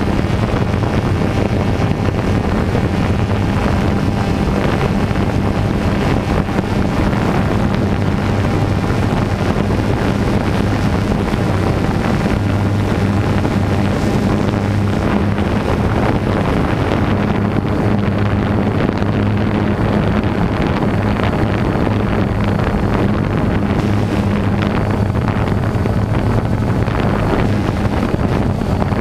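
DJI quadcopter drone's motors and propellers running in flight, a steady low hum heard from the camera carried on the drone, with wind rushing over the microphone.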